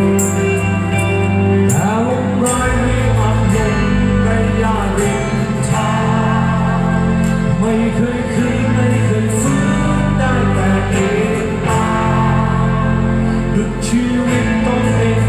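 Live rock band playing loudly with guitar, bass and drum cymbals, and a male lead singer coming in about two seconds in, heard from the seats of a large arena.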